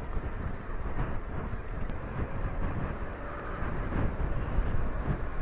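Motorcycle riding at low speed: a steady rumble of engine, wind and road noise on the on-bike microphone.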